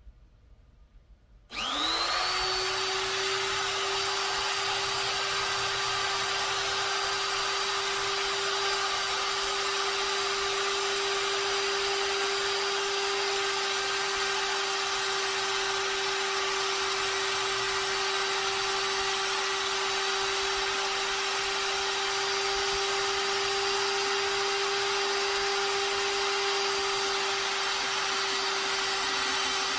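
Die grinder switched on about a second and a half in, spinning up within a fraction of a second to a steady high whine with a strong hiss. It runs on evenly while, mounted on the lathe's toolpost, it grinds the flanks of a long-pitch 3D-printed worm's thread as the carriage feeds along.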